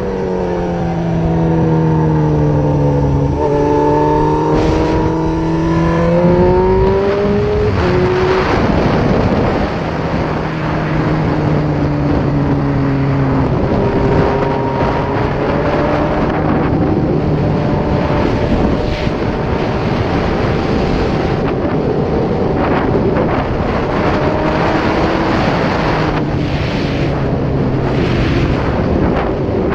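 Suzuki GSX-R 1000 K6 inline-four engine heard from the rider's helmet, its pitch falling and rising with throttle and gear changes at moderate revs, under a constant rush of wind over the microphone.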